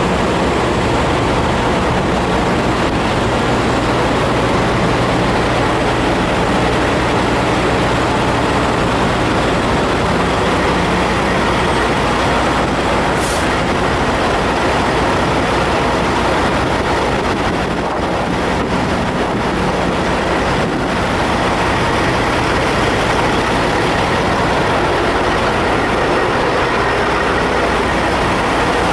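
Idling diesel engines of heavy semi trucks, a steady low engine sound that runs on evenly without change.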